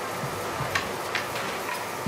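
Steady background noise with three short, sharp clicks spread across two seconds.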